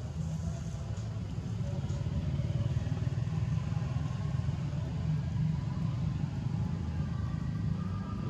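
Steady low rumble of outdoor background noise, with faint indistinct higher sounds over it.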